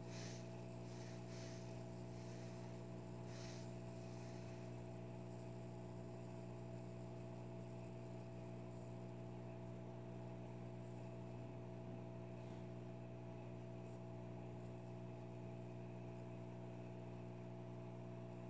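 Steady low electrical hum, with a few faint ticks in the first few seconds.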